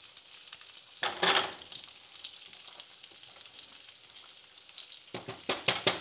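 Sliced guanciale sizzling as it shallow-fries in its rendered fat over high heat, with a louder surge of sizzle about a second in as the pieces are moved. A quick run of clicks and clacks comes near the end.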